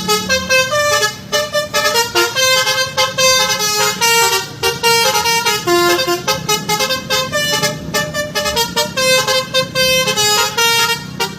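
Basuri-type bus telolet horn, a multi-trumpet air horn, playing a fast tune of short honked notes that change pitch several times a second, often sounding together like a chord.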